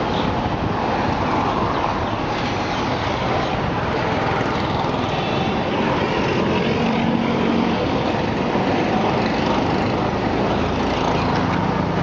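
Steady vehicle noise.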